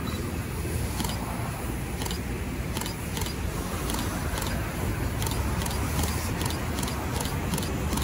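Steady rumble of an approaching Taiwan Railways local electric train mixed with town traffic noise. Light ticks come faster and faster as the train nears.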